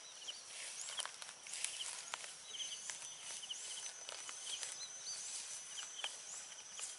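Rural outdoor ambience: short high chirping calls repeating about once a second, with a thin steady high tone for a few seconds midway and faint scattered clicks of footsteps in grass.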